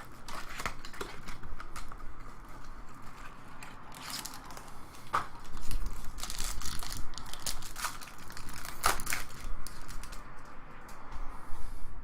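Crinkling and rustling of a trading-card pack wrapper and the cards inside being handled, in a string of short scrapes and crackles that come thickest about halfway through and again near the end.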